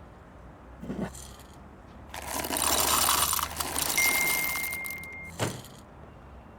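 Layered stock sound effects for a coffee scene over a low steady hum: a soft knock about a second in, then about three seconds of loud hissing and rattling with a thin high tone near its end, then a dull thump.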